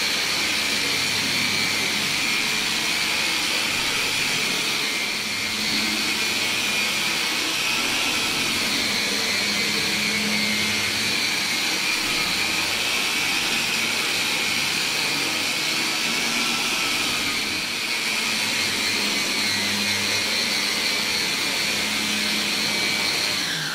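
Long-reach drywall sander (girafe) running steadily with a high motor whine over a rushing noise, its 180-grit disc smoothing the finish coat of joint compound on plasterboard tape joints. It switches off and winds down near the end.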